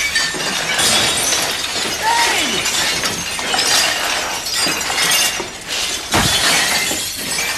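A large collection of glass and ceramic pieces crashing down and shattering, with repeated crashes of breaking glass and crockery running on for several seconds.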